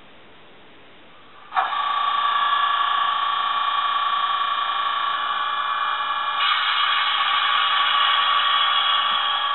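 Class 20 diesel engine sound from model locomotives' LokSound sound decoders, played through small speakers. It starts suddenly about one and a half seconds in as a steady running sound, then grows fuller and noisier about six and a half seconds in.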